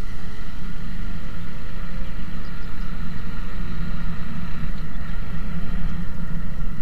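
Motorcycle running steadily at riding speed, a continuous low engine sound with no revving or gear changes.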